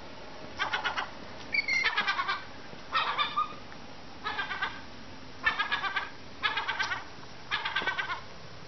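Young gull chick calling: seven short bursts of quick, high, repeated cheeping notes, about one burst a second.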